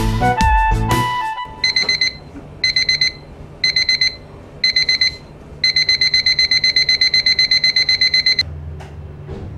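Background music for the first second or so, then an electronic quartz alarm clock beeping: four short bursts of quick, high beeps about a second apart, then a continuous fast run of beeps that cuts off suddenly near the end.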